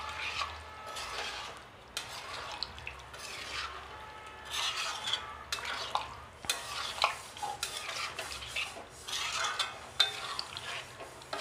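Spatula stirring and scraping cauliflower and potato curry in a kadhai, with irregular clinks and knocks of the spatula against the pan.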